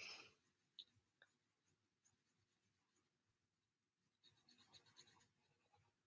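Near silence, with faint pencil strokes scratching on paper, the clearest about four to five and a half seconds in.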